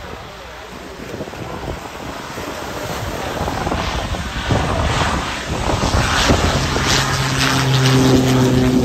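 Cessna Caravan single-engine turboprop plane on approach, its engine and propeller growing steadily louder as it comes closer, with a steady propeller drone coming up near the end. Wind buffets the microphone.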